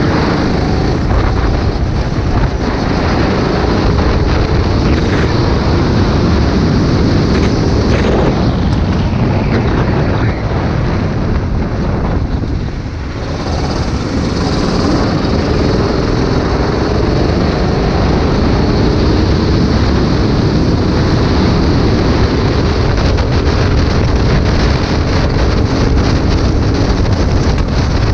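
Go-kart engine at speed, heard from on board, its pitch rising and falling as the kart accelerates and lifts through the corners, with heavy wind noise on the microphone. About twelve seconds in the engine briefly drops off, then climbs again.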